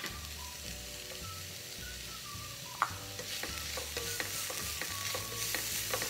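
Chopped onion and capsicum sautéing in coconut oil in a non-stick frying pan, sizzling while a spoon stirs them, scraping and tapping against the pan. There is one sharp tap a little before the middle, and the sizzle grows louder through the second half.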